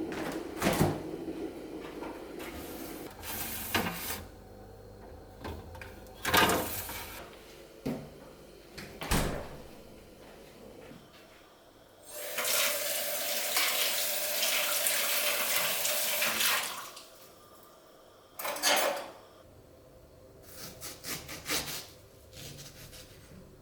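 Household handling sounds: scattered knocks and clicks of things being picked up and set down, with water running from a tap for about four seconds in the middle.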